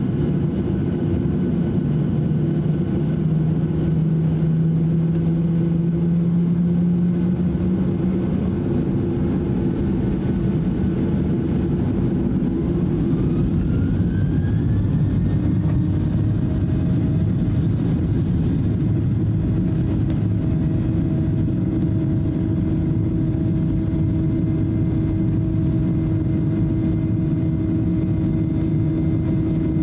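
Boeing 737-800's CFM56-7B jet engines heard from inside the cabin. A steady low hum gives way about halfway through to a rising whine as the engines spool up to takeoff thrust, then settles into a steadier, higher drone as the takeoff roll begins.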